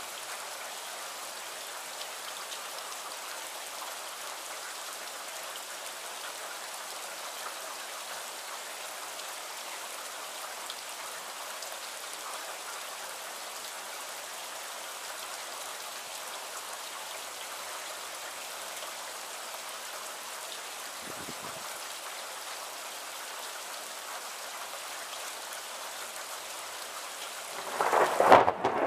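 Steady rain falling in a thunderstorm, an even hiss of drops. Near the end a sudden loud clap of thunder breaks in and keeps rumbling.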